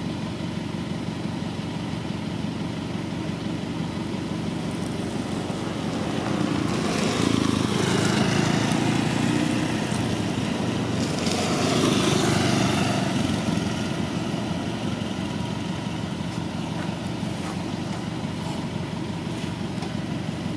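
A steady low engine hum, swelling louder twice, about seven and about twelve seconds in.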